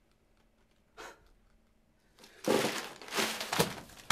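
Paper banknotes rustling and crinkling in a run of loud, irregular bursts that start about two seconds in.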